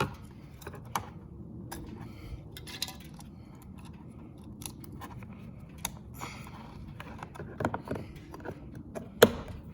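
Small plastic clicks and handling noises as a car door puddle light is worked in the door panel, with a sharp snap near the end as the LED projector light is pushed into place.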